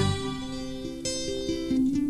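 Instrumental Thai luk thung music: a plucked-string melody playing note by note over held tones, with no singing.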